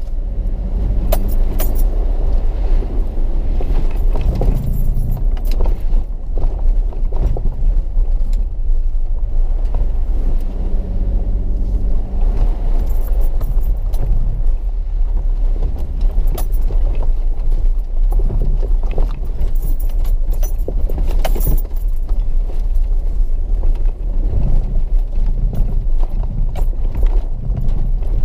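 Four-wheel-drive vehicle's engine running at low speed, heard from inside the cab, with scattered knocks and rattles as it jolts over rough, wet ground.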